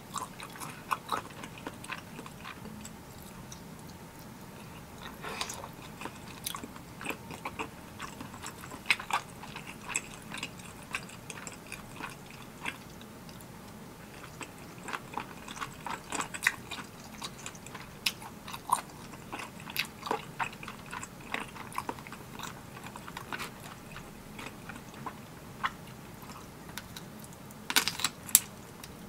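Eating sounds from spicy tteokbokki being chewed: irregular wet mouth clicks and smacks, with a quick cluster of them near the end.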